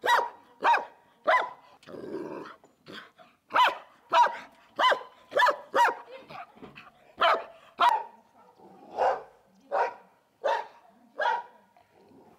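A dog barking over and over: about fifteen sharp barks, roughly one every two-thirds of a second, with a couple of short pauses.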